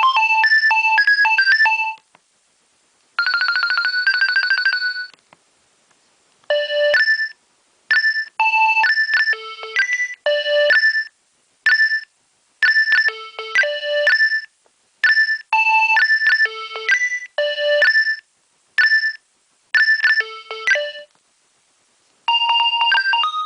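Nokia 2300 mobile phone ringtones played one after another: a melody ends about two seconds in, a short fast warbling tone follows, then a tune of short electronic notes with small pauses, and the next tune starts near the end.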